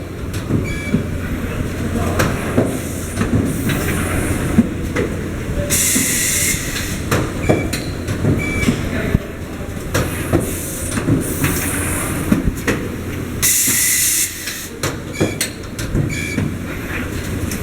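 An automated plastic-welding machine running its cycle: steady machinery noise with frequent clicks and clanks, and a sharp hiss roughly every seven to eight seconds.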